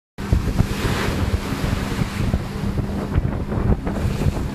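Wind buffeting the camera microphone on a ship's deck, with a steady low hum underneath. It cuts in suddenly just after the start.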